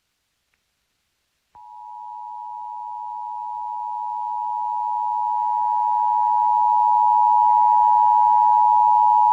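Emergency Alert System attention signal: a steady two-tone sound (853 and 960 Hz together) that starts after about a second and a half of silence, grows louder for several seconds, then holds. It is the alert tone that introduces a tornado warning message.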